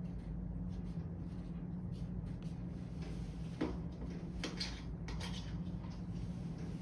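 Steady low hum with a few faint, short squelches and clicks from a plastic piping bag being squeezed to pipe cream onto a cupcake: one about three and a half seconds in, and two more within the next two seconds.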